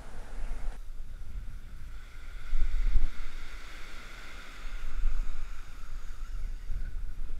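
Strong wind buffeting the microphone in gusts, a rumble that swells and eases every second or two, over the hiss of small waves washing up a sandy beach.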